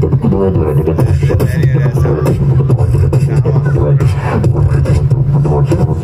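Beatboxing: quick mouth-made drum hits over a deep, continuous vocal bass line.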